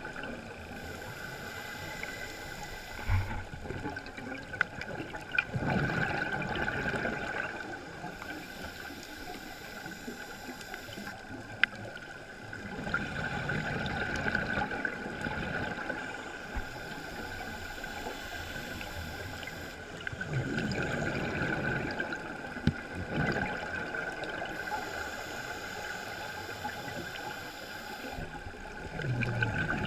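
Scuba diver breathing through a regulator underwater: a thin hiss on each inhale alternating with a louder rush of exhaled bubbles, about every eight seconds, with a few sharp clicks between.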